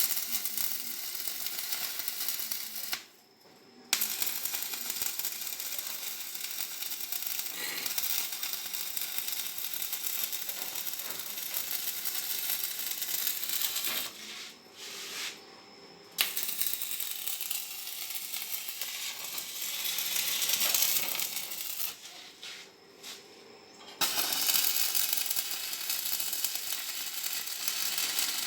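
Electric arc welding: a steady crackling hiss in runs of several seconds, breaking off three times, about 3, 14 and 22 seconds in, between welds.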